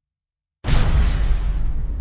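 Cinematic boom sound effect: silence, then a sudden loud hit just over half a second in, with a deep low rumble that fades slowly.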